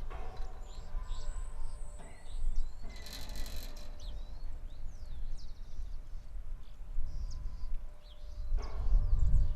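Wind gusting against the microphone as a low rumble that swells and eases, with many birds chirping throughout. A short rasping burst comes about three seconds in.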